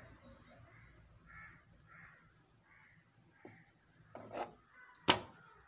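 Small aluminium trigger parts handled by hand while a short piece of drill bit is pushed into the plate. There are light clicks, then one sharp metal click about five seconds in as the piece goes in. Crows caw repeatedly in the background.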